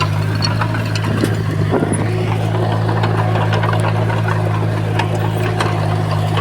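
Diesel engine of a Komatsu bulldozer running steadily at a constant pitch, with scattered metallic clicks and clanks over the drone.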